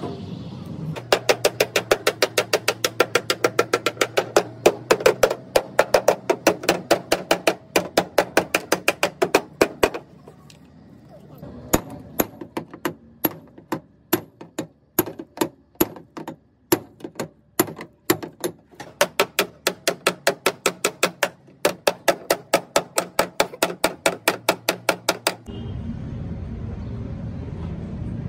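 Rapid hammer blows on car-body sheet metal, about three strikes a second, with a short pause about ten seconds in and an uneven rhythm after it. The hammering stops near the end, and a steady low rumble takes over.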